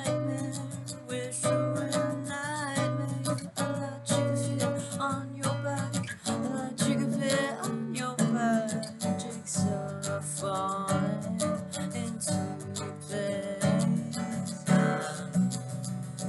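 Acoustic guitar strummed in a steady rhythm, an instrumental passage of a song with melodic lines over the chords.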